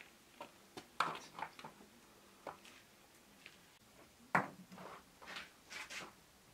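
Irregular light knocks and clicks of things being handled and set down on a wooden table, about a dozen in all, the loudest about four seconds in.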